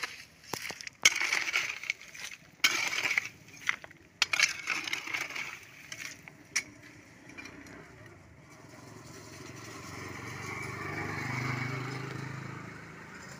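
Hand hoe blades chopping into stony soil, a run of sharp separate strikes. In the second half, a low droning sound swells and then fades.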